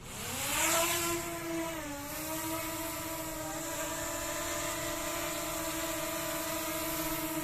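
DJI Mini 2 quadcopter's motors and propellers spinning up with a rising whine, dipping briefly about two seconds in, then settling into a steady buzzing whine as it hovers.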